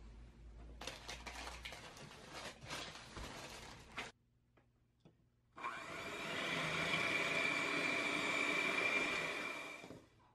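Electric hand mixer running steadily with a whine, its beaters whipping fresh cream in a glass bowl; it starts a little past halfway and stops near the end. Before it, parchment paper rustles and crinkles around a wrapped roll cake.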